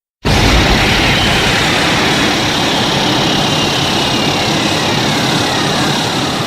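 Monster roar sound effect: one long, loud, harsh roar that starts suddenly, with a thin whistling edge slowly falling in pitch, and begins to fade near the end.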